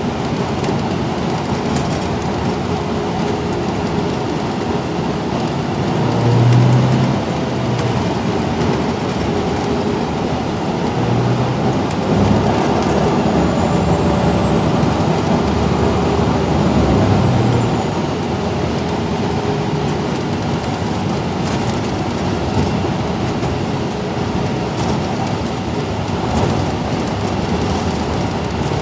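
Steady engine and road noise inside a 2012 Gillig Low Floor transit bus under way, the low engine note swelling a few times as the bus pulls and eases off.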